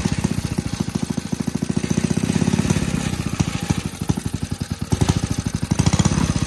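Rebuilt 1947 Clinton small single-cylinder engine running with a rapid, even firing beat while its carburetor is being adjusted to settle the idle, picking up slightly near the end.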